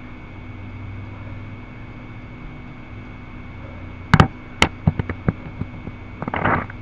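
A heavy knock and then a run of sharp clicks about four seconds in, with a brief rustling crackle near the end, over a steady electrical hum.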